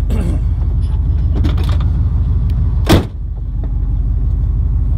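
Vehicle engine running steadily, heard from inside the cab as a low, evenly pulsing drone. A single sharp thump comes about three seconds in.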